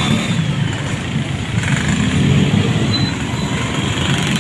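Road traffic with buses passing close by, their engines running in a steady, loud rumble.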